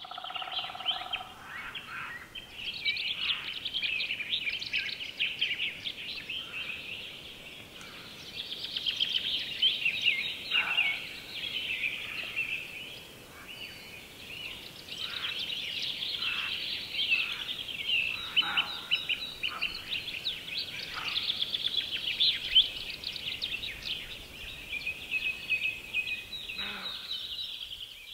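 A dense chorus of many songbirds singing at once, fast trills and chirps overlapping without a break, with now and then a brief lower call standing out.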